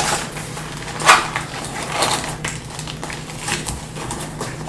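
Stiff new paper pages and a laminated divider of a disc-bound planner being turned and smoothed down by hand: a series of separate paper rustles and crinkles, roughly one a second.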